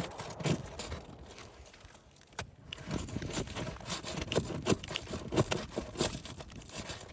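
Irregular scrapes and sharp clicks of work on brittle roof shingles, growing busier about two and a half seconds in after a quieter stretch.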